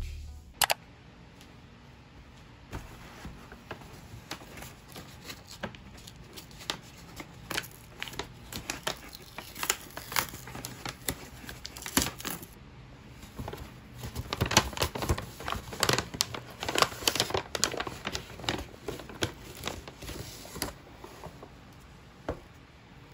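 Kraft paper takeaway bag rustling and crinkling as hands open it and take out the paper coffee cups, with many short, sharp crackles that grow busier in the second half.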